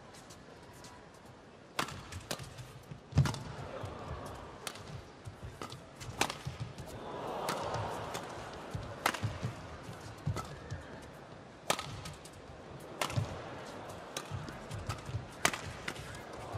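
Badminton rally: rackets strike the shuttlecock with sharp clicks about every one and a half seconds, over arena crowd noise that swells in the middle.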